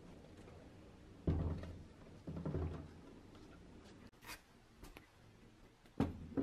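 A few dull thunks and knocks of objects being handled or set down on a hard surface, two heavier ones early and two sharper ones near the end, with a brief high swish in between.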